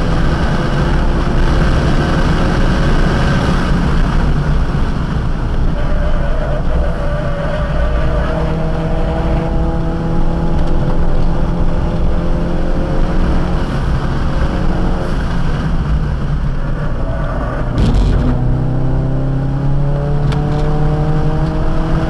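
Car engine heard from inside the cabin under hard acceleration on a track lap, its pitch climbing steadily. About 18 seconds in there is a short break for a gear change, and the pitch drops and climbs again.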